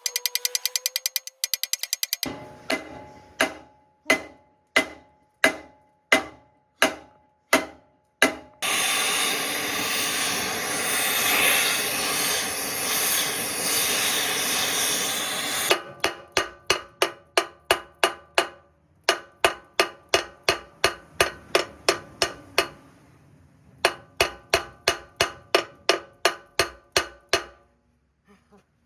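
Hammer blows on steel axle parts, each ringing metallically. They come singly about every second and a half, then faster, two or three a second. Between them, for about seven seconds, a loud steady rushing noise, from a power tool or air.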